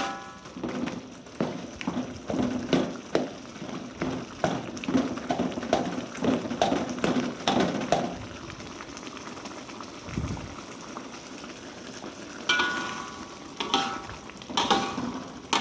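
A metal spatula stirring and scraping through spiced fish frying in a pan, over a steady sizzle, with about one to two strokes a second. The stirring pauses partway through, and near the end the spatula clanks against the pan with a ringing metallic sound.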